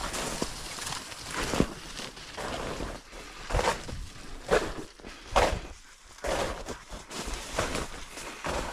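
Footsteps of a person walking through field cover, a noisy step roughly once a second.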